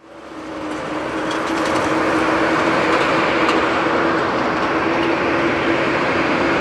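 Air Canada Boeing 787-9's twin jet engines at high thrust, as at the start of a takeoff. The loud noise builds over the first couple of seconds after a sudden start and then holds steady, with a steady low hum running through it.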